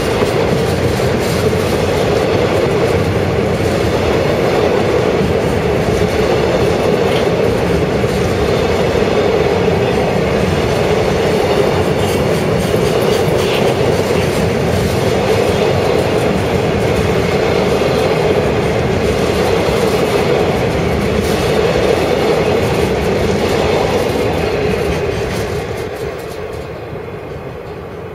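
Container freight wagons rolling past close by: a steady rumble of steel wheels on rail with light clicking over the rail joints. The sound fades away over the last few seconds as the tail of the train passes.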